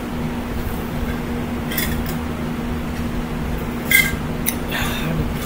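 Ice clinking in a metal tumbler as it is tipped up to drink, with a faint clink about two seconds in and a sharper one about four seconds in, over a steady low background hum.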